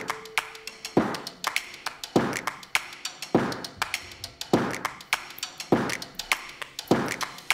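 Background music in a sparse passage: a light percussive beat, a little under two evenly spaced hits a second.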